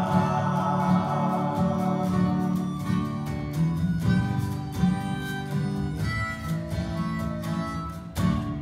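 Live acoustic band in an instrumental passage: two acoustic guitars strumming over a cajón beat, with a harmonica played into the vocal mic. About 8 s in the music briefly drops, then comes back on a sharp accented strum.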